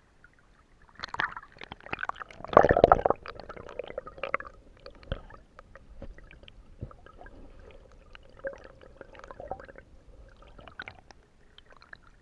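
Irregular splashing and squelching in shallow water with scattered small knocks, loudest in a burst about two and a half seconds in.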